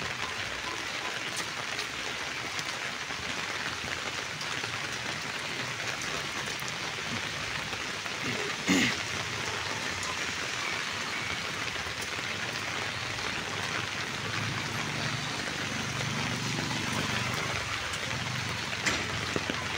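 Steady rain falling, an even hiss, with one short, sharp, louder sound about nine seconds in.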